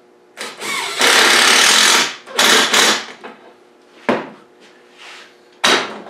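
Cordless impact driver driving a screw into wood. It spins up, runs loudly for about a second, then gives two short bursts. Two sharp knocks follow, about 4 and 5.7 seconds in.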